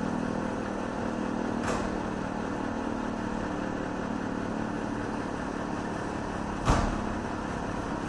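Steady outdoor background noise with a low engine-like hum, broken by two short knocks: one under two seconds in and a louder one, with a low thump, near the end.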